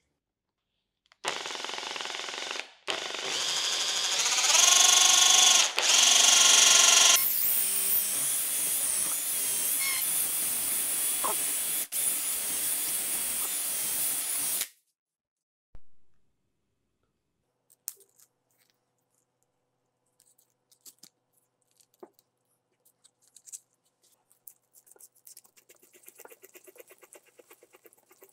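Cordless drill boring into the end of a wooden knife handle clamped in a vise. The motor stops briefly near the start, then climbs in pitch for a few seconds, runs steadily and cuts off about halfway through, leaving only a few faint clicks.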